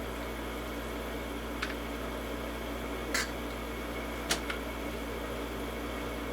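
A few light plastic clicks and taps from handling a toy Nerf blaster, heard over a steady background hum.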